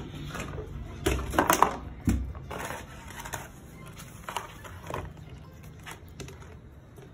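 A plastic dustpan clattering and scraping as a puppy paws and bites at it on a metal door track: a run of sharp knocks loudest between one and two seconds in, then softer scrapes and knocks.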